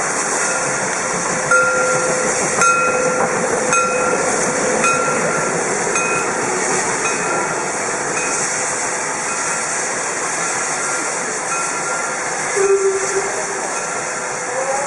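DR Class 52 2-10-0 steam locomotive moving off slowly with a steady loud steam hiss. Short ringing tones repeat about once a second, fading through the second half, and a brief lower tone sounds near the end.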